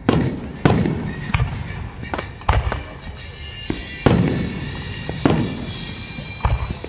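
Aerial fireworks shells bursting overhead: a string of loud bangs, roughly one every half second to second and a half, each trailing off in a fading rumble.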